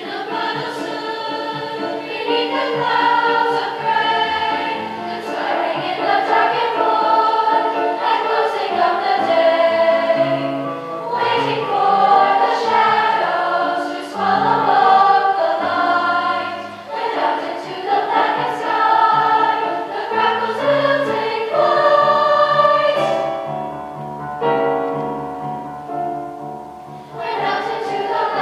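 Middle school choir singing in parts over low accompaniment notes, which turn into a steady repeated pulse in the last third.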